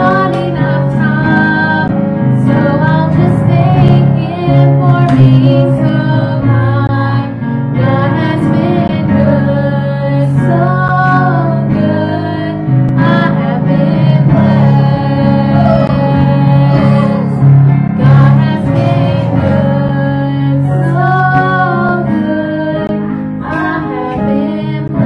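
Two women singing an old church song together over a steady instrumental accompaniment.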